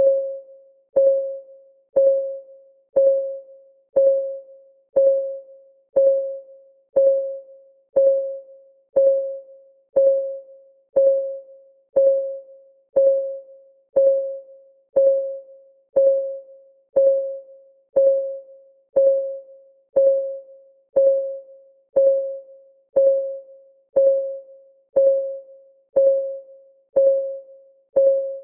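Clock ticking sound effect for a countdown timer, one tick a second: each tick is a short, clear pitched tock that rings briefly and fades before the next.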